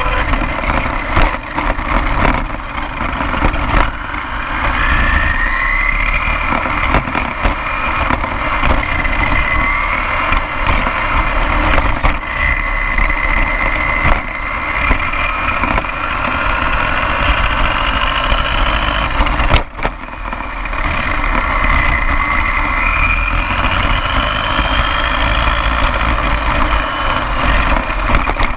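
Onboard sound of an electric RC car running fast on asphalt: a whining motor that rises in pitch again and again as it speeds up, over a steady rumble of tyres on the road. The sound dips briefly about two-thirds of the way through.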